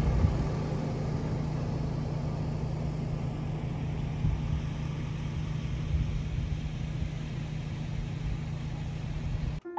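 Pickup truck engine idling steadily, a constant low hum over even background noise, which stops abruptly near the end.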